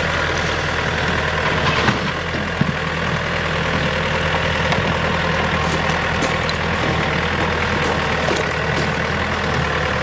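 Tractor engine running steadily at low revs, with a few faint clicks and knocks over it.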